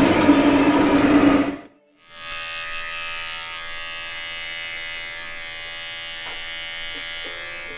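A loud, steady machine noise with a low hum cuts off about a second and a half in. After a short gap, an electric pet trimmer hums steadily, with plucked ukulele-like music coming in near the end.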